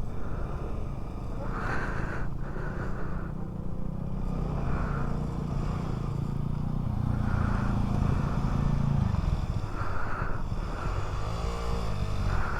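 Motorcycle engine pulling up a steep, rough off-road climb, growing louder past the halfway point and then dropping away.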